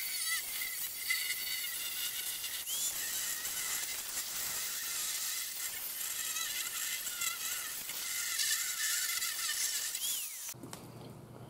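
Angle grinder with a thin cutoff wheel cutting through the rusted sheet steel of a mower deck: a high, wavering whine over a hiss as the wheel bites the metal. It stops about ten and a half seconds in.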